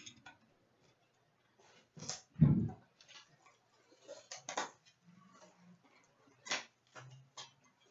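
Hockey trading cards and their packaging being handled: scattered short clicks and rustles, with one louder thud about two and a half seconds in.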